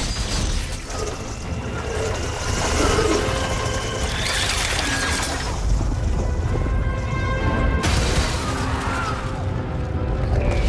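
Film battle soundtrack: orchestral score over the mechanical clanking and booms of dwarven war machines being loosed, with a heavy low rumble underneath.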